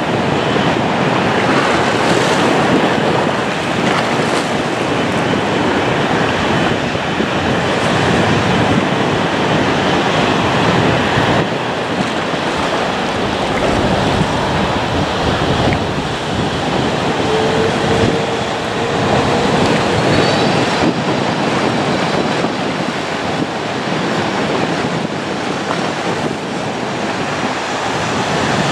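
Jet airliner engine noise: a loud, steady rush with a faint high whine running through it.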